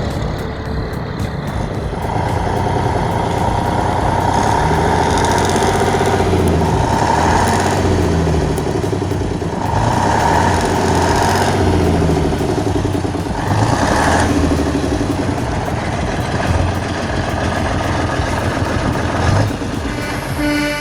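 Heavy truck's diesel engine running under load, its pitch rising and falling several times as it revs and eases off.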